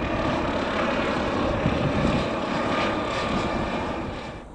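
Aircraft engine noise, a steady rushing drone that cuts off abruptly right at the end.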